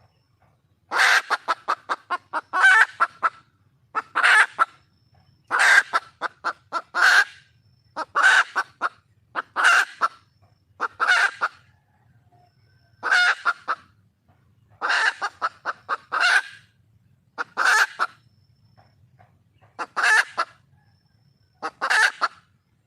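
Wild junglefowl hen calling for a mate: groups of rapid clucks, each ending in a longer note, repeated about every second and a half.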